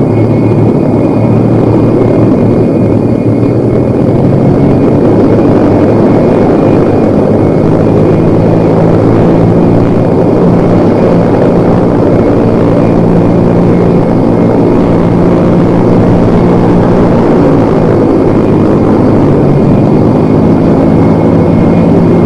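Propeller airliner's engines droning loud and steady close overhead on the landing approach, a deep throbbing hum with faint high whistling tones.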